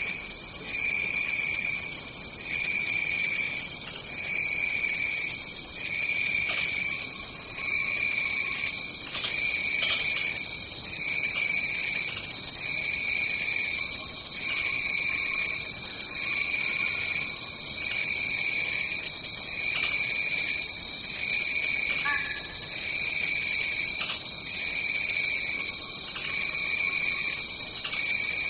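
Tropical rainforest insect chorus: a steady high-pitched insect drone with a second, lower insect call pulsing on and off about once a second, and a few faint clicks.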